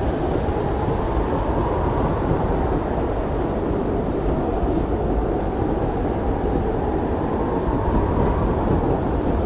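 Blizzard wind blowing steadily as a deep rushing roar, swelling slightly near the end.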